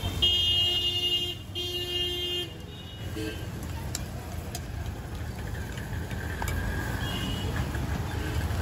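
A vehicle horn sounds twice, each toot about a second long, over a steady low rumble of street traffic.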